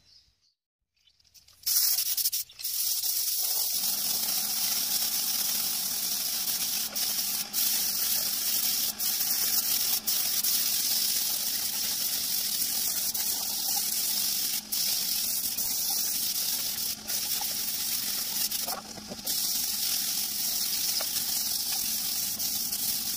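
Compressed-air gravity-feed spray gun spraying grey paint onto a motorcycle frame for a second coat: a steady, high hiss that starts about two seconds in, with a few brief breaks.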